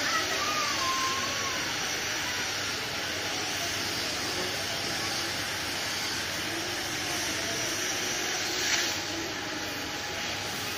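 Oxy-fuel gas cutting torch blowing steadily as it cuts through steel plate, a constant hissing rush of gas and oxygen jet, with a brief louder surge near the end.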